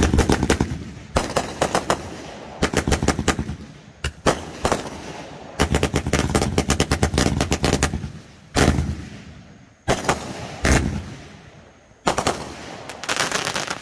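Multi-shot consumer fireworks cake firing volleys of rapid bangs and crackles, about ten clusters with short gaps between them, the longest running about two seconds near the middle.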